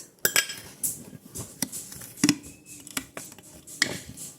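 A half-cup measuring cup scooping flour from a storage container, with irregular clicks, knocks and short scrapes as the cup is levelled and emptied into a bowl.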